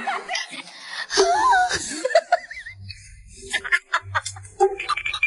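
A woman laughing in repeated bursts.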